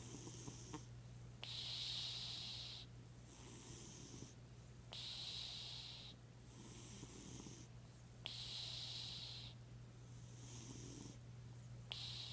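Sleeping cat snoring softly, a breath about every three and a half seconds, each with a hissing part and a lower rasping part.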